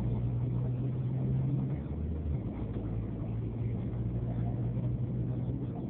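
Engine of a moving road vehicle humming steadily, heard from inside the vehicle, over road and traffic noise.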